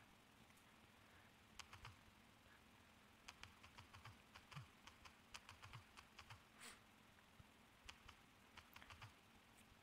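Faint, irregular clicks of typing on a phone's touchscreen keyboard, coming in quick runs of taps with short pauses between them. About seven seconds in there is a single slightly longer, hissier sound.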